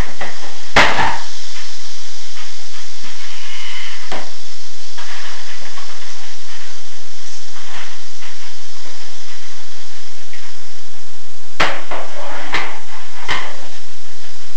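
Sharp knocks of a metal snake hook against a plastic tub, one loud about a second in, a few fainter ones, and three in quick succession near the end, over a steady hiss.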